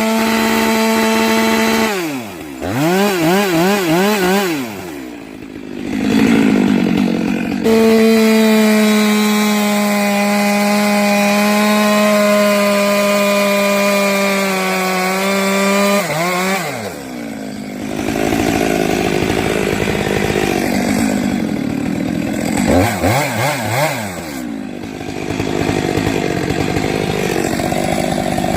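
Stihl two-stroke chainsaw cutting locust wood at full throttle, its high engine note sagging slowly as the bar loads in the cut. Twice it drops off to idle and is revved up and down in short blips before going back to full throttle.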